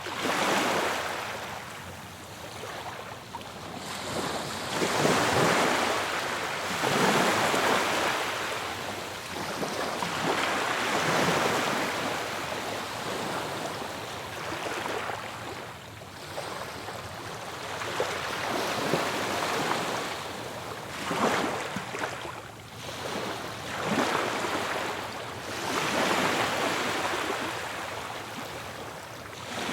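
Ocean waves breaking on the shore, surging and falling away in repeated swells every few seconds.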